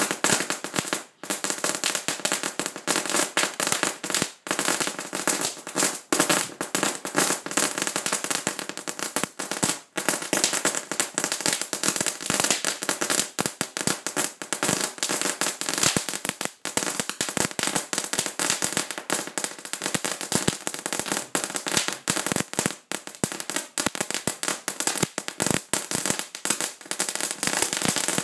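Volcano ground-fountain firework spraying sparks with a dense, rapid crackle of many tiny pops. The crackle drops out for a moment a few times.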